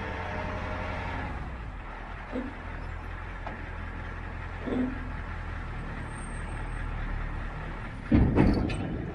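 Diesel engine of a compact machine running steadily while oak logs are moved, with a couple of light knocks and one louder clattering knock near the end.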